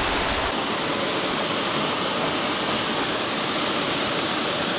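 Steady rush of river water running over rocks, an even hiss with no break. A low rumble under it drops away about half a second in.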